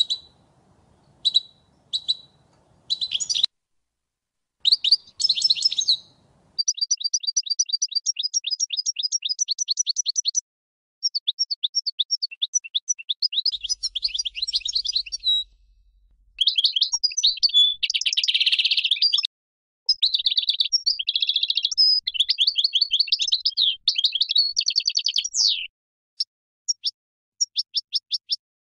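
European goldfinch of the large 'Major' type singing. A few short call notes at first lead into long runs of fast, high twittering and trills, with a denser, rougher passage about two-thirds of the way through. It ends in spaced single notes.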